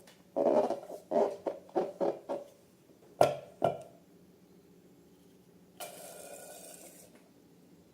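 Slime and balloons being handled: a quick run of short squelches, then two sharp snaps, and a faint hiss lasting about a second near the end.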